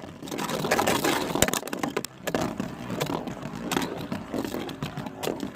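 Two Beyblade spinning tops, one of them 3D-printed, whirring and scraping around a stadium and clashing with several sharp hits.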